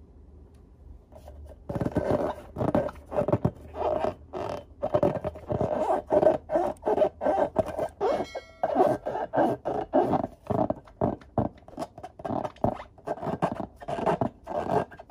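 Hands rubbing and squeezing a filled latex balloon: uneven rubbing scrapes of skin on rubber, a few strokes a second, starting about a second and a half in.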